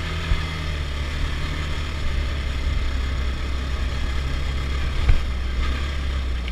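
Quad bike engine idling steadily, with two short knocks, one just after the start and one about five seconds in.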